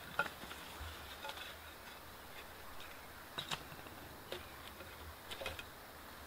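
Sticks and twigs being set in a campfire lay: a few faint, scattered clicks and light knocks of wood on wood, a pair of them about three and a half seconds in and a small cluster near the end.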